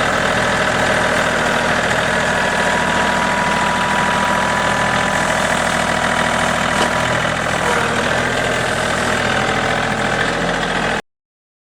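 Sawmill engine running steadily, with a faint high whine over it, cutting off suddenly near the end.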